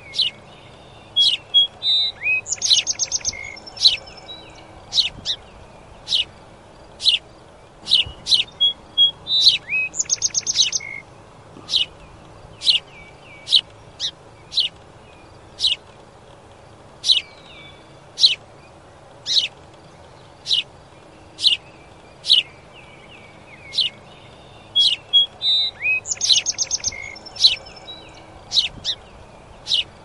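Sparrow chirping: short, sharp, high chirps repeated about once a second, with three quick rattling trills mixed in.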